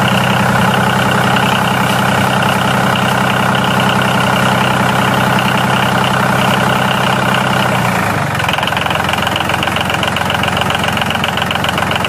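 Tractor engine running steadily. About eight seconds in its tone changes to a rougher, pulsing chug.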